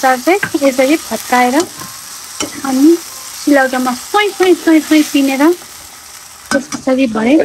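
Tomato pieces sizzling as they fry in oil in a steel karahi, stirred with a steel ladle in repeated short strokes that scrape the pan with a squeaky pitched sound.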